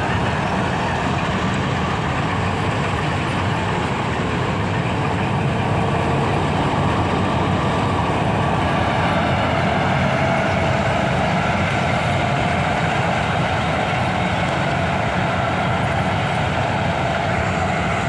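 Dasmesh combine harvester running at working speed while cutting and threshing: its diesel engine and threshing machinery make a loud, steady mechanical noise that swells slightly about halfway through as the machine passes closest.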